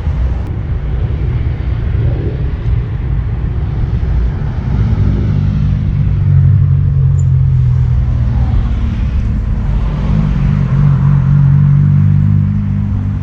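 Road traffic running close by: the low rumble of motor vehicle engines, heaviest in the second half, as vehicles pass.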